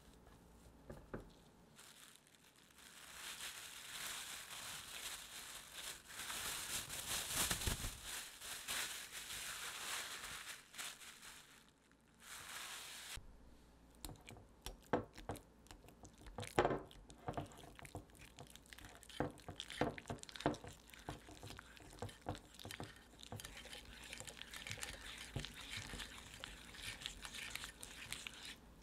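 Plastic crinkling for several seconds as the tart dough is bagged. After a short pause, a wire whisk mixes stiff cream cheese, sour cream and butter in a glass bowl, with quick clicks and scrapes of the wires against the glass.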